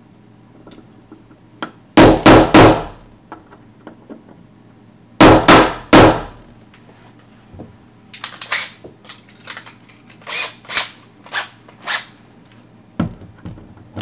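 Hammer blows on a steel punch held against a Kwikset deadbolt's brass lock cylinder: two quick sets of three hard metallic strikes, then a run of lighter taps and one more sharp knock near the end.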